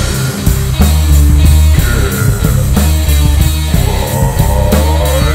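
Rock music with electric guitar and a steady drum beat, loud.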